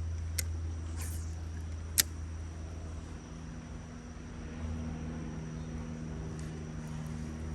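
A motor vehicle's engine droning low and steady, its deepest hum easing about three seconds in while a somewhat higher steady drone holds. Two sharp clicks sound in the first couple of seconds.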